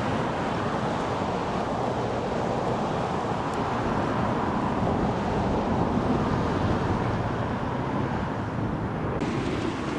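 Steady road traffic rumble with wind buffeting the microphone.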